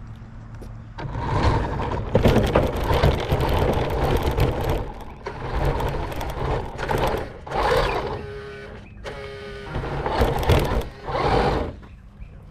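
RC car's motor and drivetrain heard from on board the car, whining and rattling in surges as the throttle is worked, over the car's tyres on the road and gravel. A steady whine holds between about eight and ten seconds in.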